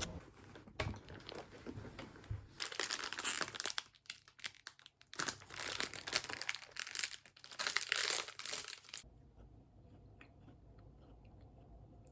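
Crinkling and rustling in irregular bursts, like something being handled, stopping about nine seconds in.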